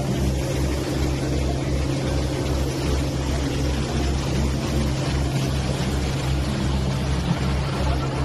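Tourist boat's engine running steadily with a low, even throb of about three beats a second, under a constant rush of wind and water.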